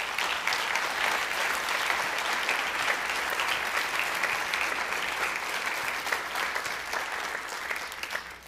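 Congregation applauding: a long round of many hands clapping, steady in the middle and fading near the end.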